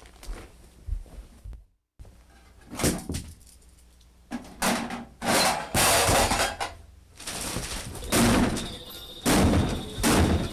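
A run of loud thuds and clattering. It comes in several noisy bursts after a brief drop to silence near the start.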